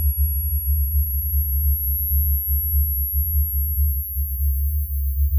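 A deep, rapidly fluttering low electronic drone, with a thin steady high whine above it: film-score sound design.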